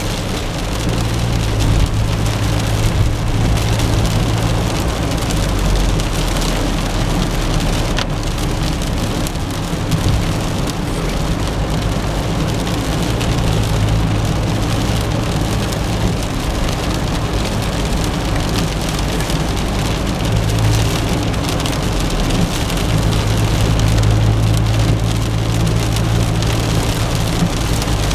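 Steady hiss of rain and wet tyres heard inside a moving car's cabin, over a low, even drone of engine and road noise.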